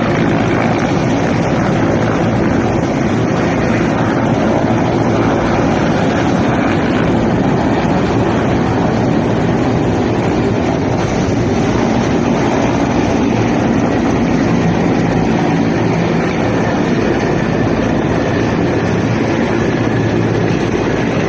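Aircraft engine running with a steady, loud roar, heard as a close, continuous wash of engine and airscrew noise.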